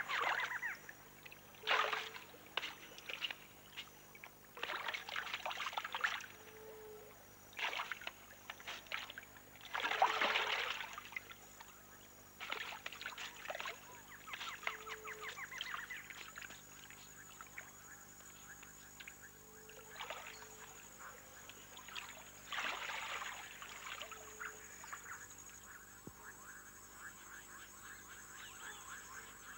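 Water splashing in irregular bursts as a caiman thrashes in the shallows with prey in its jaws, loudest about ten seconds in. A faint fast clicking goes on in the background in the second half.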